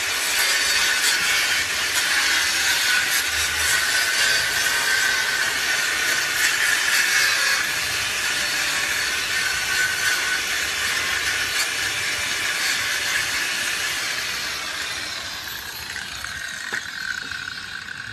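A power tool grinding or cutting steadily, a high whine over a loud hiss, easing off and stopping near the end.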